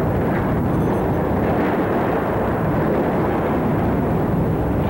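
Hurricane-force wind blowing hard and steadily, buffeting the camcorder's microphone into a continuous low rumble.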